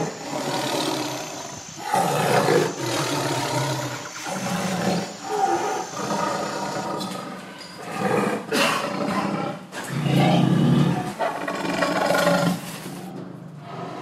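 Lions roaring and growling in a string of short calls, one every second or so.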